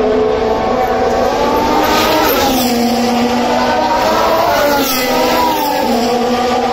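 Formula One cars' turbocharged V6 hybrid engines running through a corner at speed. The engine pitch dips and rises, about two to three seconds in and again near five seconds, with more than one engine note overlapping.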